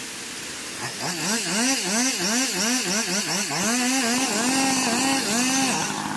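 Small engine revved over and over, starting about a second in, its pitch rising and falling about two to three times a second and slowing near the end.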